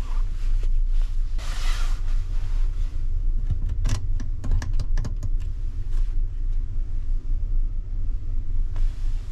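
Steady low rumble of the ferry's engines under way, heard from inside a passenger berth. A brush of fabric comes a second or two in, then a quick run of small clicks and taps about four to five seconds in as a hand handles the wall-mounted coin unit and its plugged-in cable.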